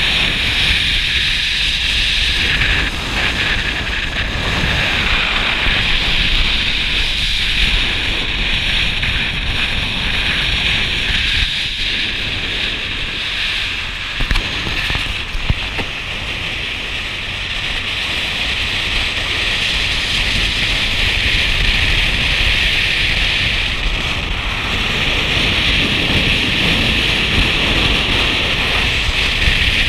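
Steady wind noise buffeting a camera microphone outside a moving car, over a low rumble from the car and road.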